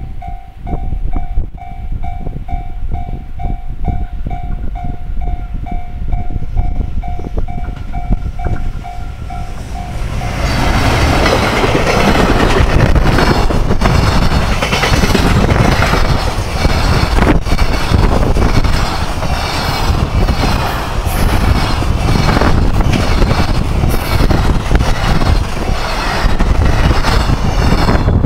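Level-crossing warning bell ringing, a steady repeating electronic ding. About ten seconds in, a container freight train runs through the crossing: a loud continuous rush of wheels and wagons with rhythmic clatter over the rail joints, which drowns the bell out.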